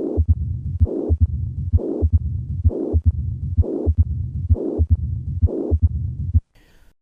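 Recorded heart sounds of mitral stenosis: a steady heartbeat of about 65 beats a minute, each cycle sharp low heart sounds with a noisy murmur between them. The beats stop about six and a half seconds in.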